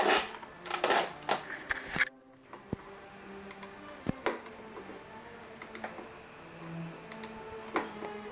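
Scattered clicks and taps on a computer keyboard, after two short rustling swishes at the start and about a second in, over a faint steady electrical hum.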